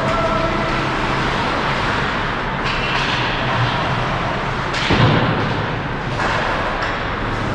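Ice hockey rink game sound: a steady noisy wash of play with several knocks, and a loud thump about five seconds in.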